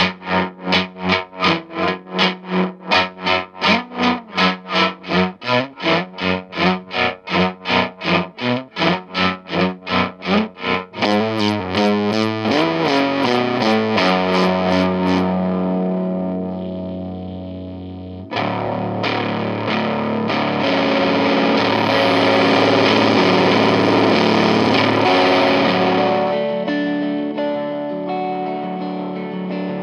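Baranik B1 electric guitar played through a Chase Bliss and ZVEX Bliss Factory fuzz pedal, its volume knob ramped to make a tremolo fuzz: the fuzz chops on and off about three to four times a second, then the chopping speeds up into a flutter and smooths into a held fuzz chord around eleven seconds in. A new chord is struck about eighteen seconds in and rings on with the fuzz as the drive knob is swept.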